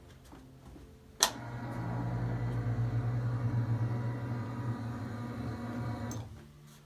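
A sharp click, then a small electric motor humming steadily for about five seconds before it stops.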